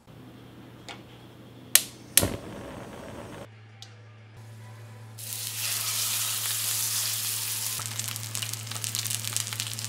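Two sharp knocks about two seconds in, then from about five seconds in a steak sizzling loudly in a hot oiled cast-iron skillet, over a steady low hum.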